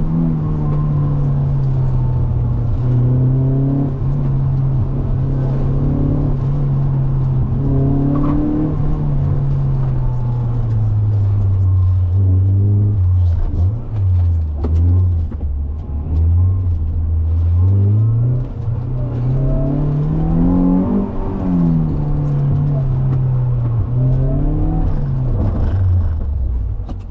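Mazda MX-5's four-cylinder engine heard from inside the cabin, driven hard round a cone course. The revs hold fairly steady at first, drop low in the middle, then climb steeply to a peak about three-quarters of the way through and fall away again.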